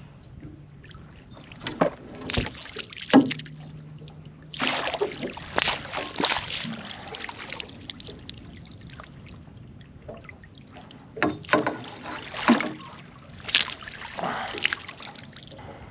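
Water splashing and sloshing in several bursts as a hooked squid struggles and jets at the surface beside the boat and is scooped into a landing net. A faint low hum runs under the first few seconds.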